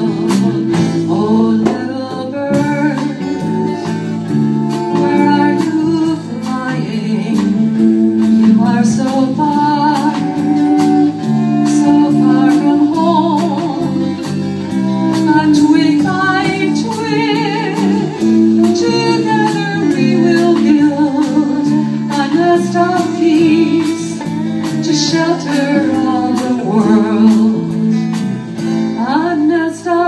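Live band music: acoustic and electric guitars, bass guitar and a drum kit playing a folk-rock song together, with a melody line that bends and wavers above the steady bass and drum beat.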